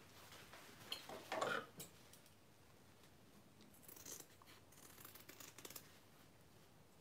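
Scissors snipping through fabric, trimming a seam allowance down around the curves of a sewn piece: a few quiet, separate snips, with a brief louder rustle about a second and a half in.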